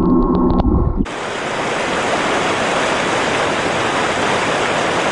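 For about the first second, a muffled underwater rumble with faint clicks. Then it cuts suddenly to a steady rushing hiss of seawater pouring and splashing off a steel-mesh ROV sampling basket as it is hoisted out of the sea.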